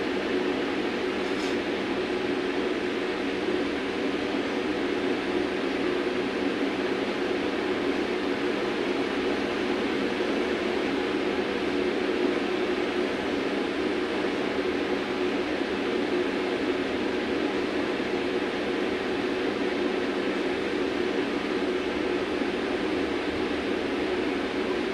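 Steady hum inside a VMZ-5298.20 trolleybus standing still in traffic, from its onboard equipment.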